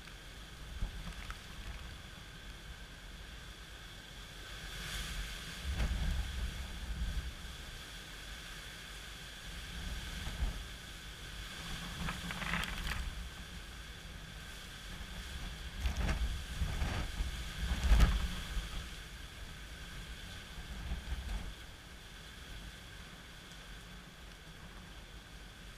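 Hurricane wind gusting over steady rain, the gusts buffeting the microphone in low swells that come and go several times and are strongest about two-thirds of the way in.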